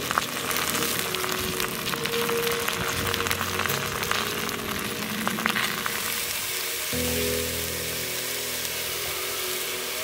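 Food frying in a deep layer of hot oil in a kazan, a steady sizzle with many sharp pops. The popping is densest in the first six seconds and softer after that, over background music.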